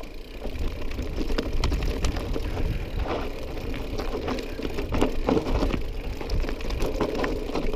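Mountain bike riding over a rough trail: a steady low rumble with frequent short clicks and rattles.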